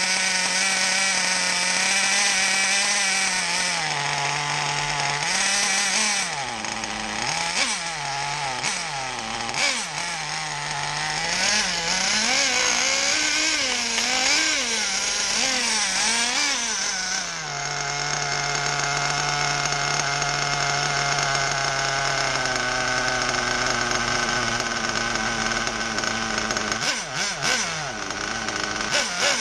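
Hyper 28 nitro RC car engine, a small two-stroke glow engine with a three-needle carburettor, running while being tuned; its cylinder head is held by only two of its bolts. It runs steadily, drops in pitch about four seconds in, then speeds up and slows again and again for about ten seconds, settles to a steady lower idle, and falters briefly near the end.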